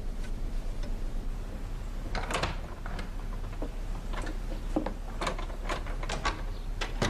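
Footsteps and small knocks at an uneven pace, with fabric rustling, starting about two seconds in, over a steady low hum.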